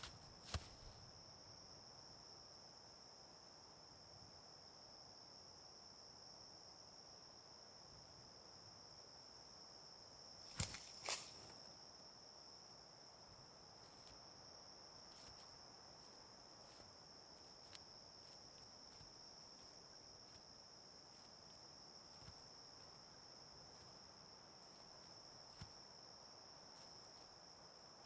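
Faint, steady, high-pitched insect chorus. A few sharp snaps break in, loudest in a quick cluster about eleven seconds in.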